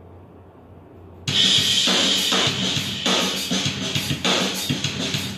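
Faint low hum, then about a second in a loud band track with a driving drum kit starts abruptly and plays on.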